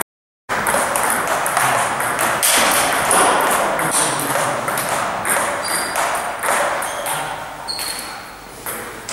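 Celluloid-type table tennis ball clicking off bats and table in a rally, over a loud, steady rushing hiss of background noise that eases off near the end. The sound drops out completely for half a second at the very start.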